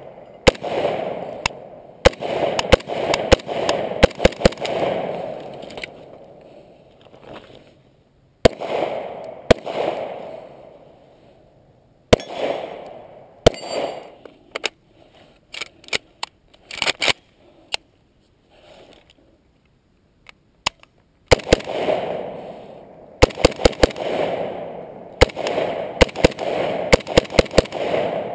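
Arsenal SGL 31-94 semi-automatic AK-74-pattern rifle in 5.45x39 firing strings of rapid shots, each shot followed by an echoing tail. A quieter stretch with a few faint clicks falls in the middle, and a fast string follows near the end.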